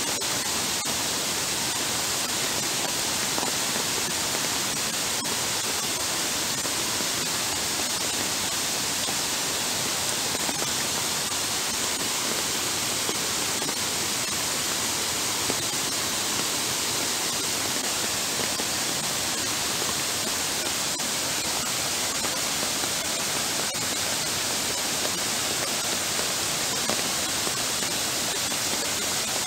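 Heavy downpour hissing steadily, with floodwater running across a paved path.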